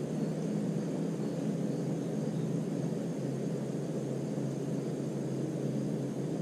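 A steady low rumble with a faint hum in it.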